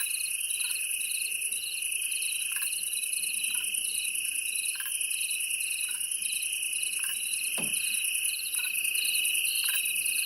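Cricket chorus coming from a Google Nest smart speaker: several insects chirping at once at different pitches, one steady high trill and one repeating chirp two or three times a second.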